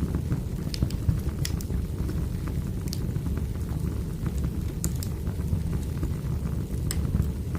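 Burning firewood crackling: a steady low rumble of fire with sharp, irregular pops every second or two.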